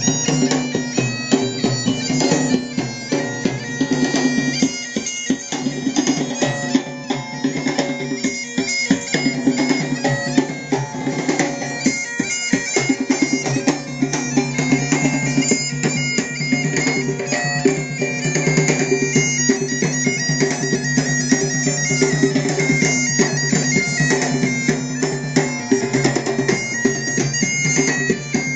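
Bagpipes playing a melody over their steady drones, with drums beating along throughout.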